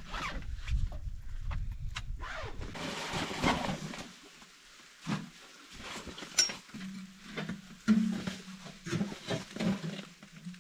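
Scattered knocks, clicks and rustling, like gear being handled. A low steady hum joins them about seven seconds in.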